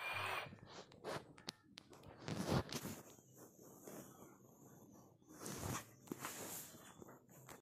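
Rustling and scuffing of bed sheets and a blanket as a small white puppy scrambles and paws about on a bed, in irregular bursts.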